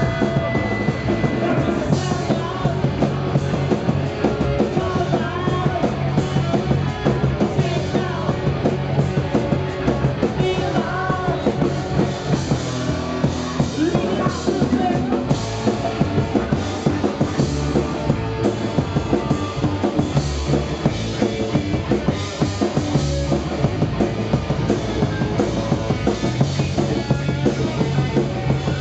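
A punk rock band playing live: electric guitar, bass guitar and drum kit at full volume with a steady beat, and a singer's vocals over them.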